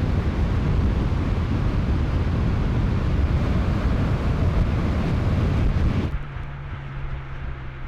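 Heavy wind buffeting and road rumble on a microphone moving at speed behind a car. About six seconds in it drops away and a quieter, steady engine drone from the BMW M5's V8 takes over.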